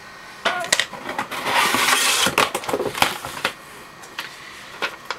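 A mail-order package being opened by hand. A few knocks and clicks of handling, then about a second of loud rustling of the packaging, then more clicks and crinkles as the contents are pulled out.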